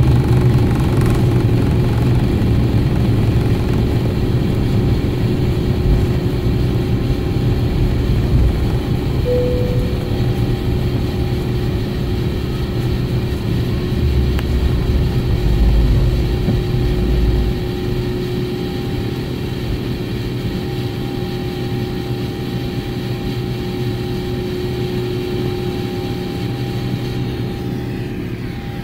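Airbus A350 jet engines at takeoff thrust, heard from inside the cabin: a steady roar with a constant whine over it as the airliner leaves the runway and climbs. A heavy low rumble stops suddenly about two-thirds of the way through, and the roar then eases gradually.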